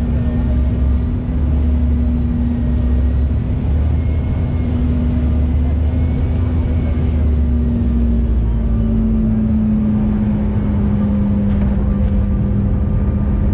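Cabin noise of a Bombardier CRJ1000 regional jet on final approach and flare over the runway: the loud, steady rumble of its rear-mounted turbofan engines and the airflow. A steady engine hum runs through it and drops slightly in pitch about eight seconds in.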